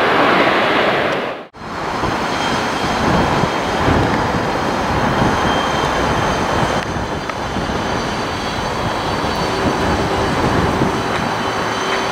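Jet airliner engines running: a loud rush breaks off sharply about a second and a half in, then a steady jet rumble carrying a thin high whine.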